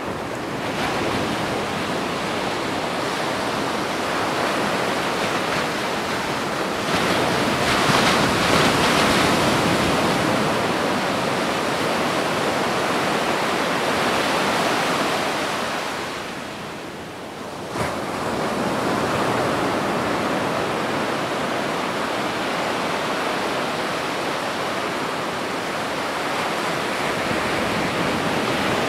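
Gentle waves breaking and washing over a small-stone beach in a continuous surf wash, with a stronger wave swelling about seven seconds in. Past the middle the surf falls to a brief lull, which ends in a single sharp click.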